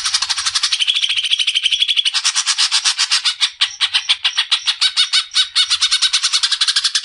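Green leafbird (cucak ijo) singing a long, loud burst of rapid, harsh repeated notes, about ten a second.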